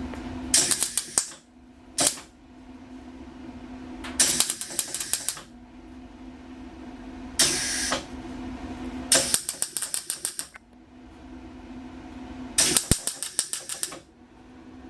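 Arc welder laying short stitch welds on a truck bed's sheet-metal seams: about six crackling bursts of a second or so each, with a steady hum in the pauses between them.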